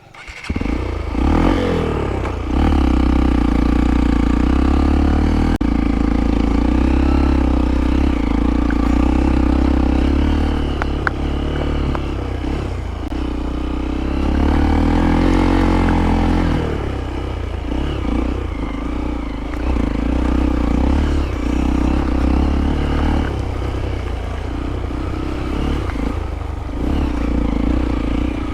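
Hero Impulse's single-cylinder motorcycle engine running hard, revving up and falling back over and over, with the bike clattering over rough ground. It comes in suddenly about half a second in.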